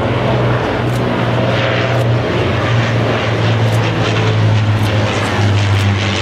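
Four Rolls-Royce Merlin V12 piston engines of an Avro Lancaster bomber running steadily as it flies past low, the engine note dropping slightly in pitch about five seconds in as the aircraft passes.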